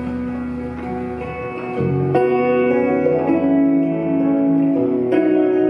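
Instrumental passage of a live folk trio: guitars over an electric bass, with no singing. The band gets louder about two seconds in.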